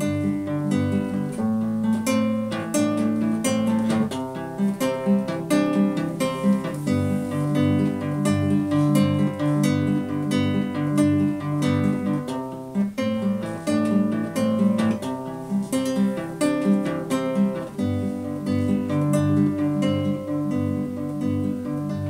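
Solo acoustic guitar playing an instrumental passage with no voice: a steady rhythmic pattern of plucked chords over a moving bass line.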